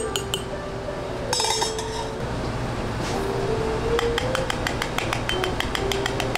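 Metal bar spoon clinking against a ceramic coffee cup as a drink is stirred: a few sharp clinks at the start, then a brief scrape about a second and a half in. Soft background music with a quick, even ticking beat runs underneath, the ticks plainest in the second half.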